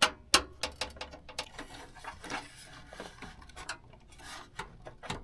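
Hands working on a graphics card inside a desktop PC: two sharp clicks at the start, then scattered light clicks, taps and scraping of the parts being handled.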